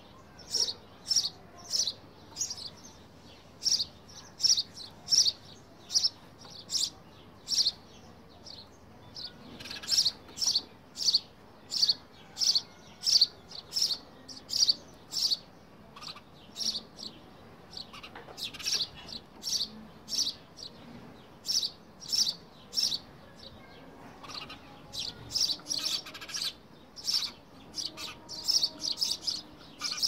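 Sparrows chirping: a long run of short, high cheeps, about one or two a second, coming thicker in several stretches.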